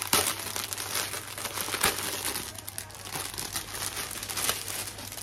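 Clear plastic packaging crinkling and crackling as it is handled and opened and a towel is drawn out of it, with the sharpest crackles at the start and about two seconds in.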